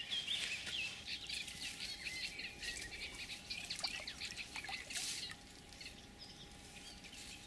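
Small songbirds chirping and singing busily, the song dying down about five and a half seconds in.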